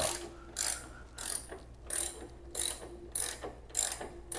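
Ratcheting wrench clicking in short bursts about every two-thirds of a second, each back-swing of the handle as it unscrews the 17 mm upper shock-absorber bolt of a Royal Enfield Classic 350. The bolt has broken free and is turning easily.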